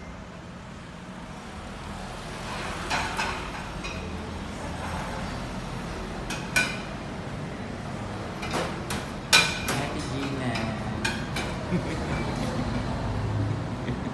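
White ceramic plates clinking and knocking together as they are handled and stacked, several sharp clinks with a short ring. A steady low hum runs underneath.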